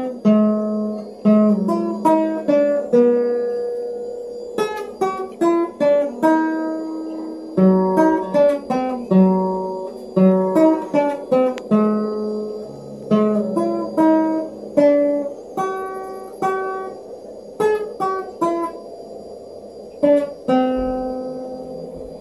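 Classical guitar picking out a Christmas melody one note at a time, in phrases with short pauses between them, as the tune is being practised.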